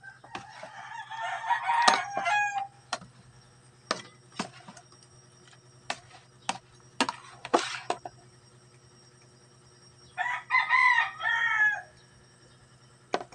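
A rooster crowing twice, a long crow near the start and a second, broken one about ten seconds in, with scattered sharp clicks in between.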